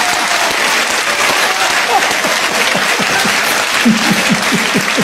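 Studio audience applauding, with short bursts of laughter over the clapping.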